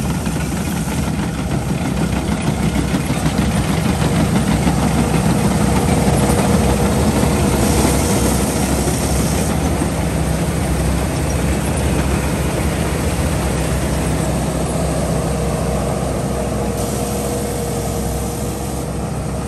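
Rice combine harvester running steadily at working revs while it cuts rice.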